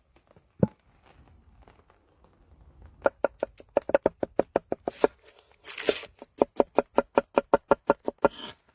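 Rapid, even strikes of a kitchen utensil, about five a second, starting about three seconds in after a single knock, with two short rushing sounds among them.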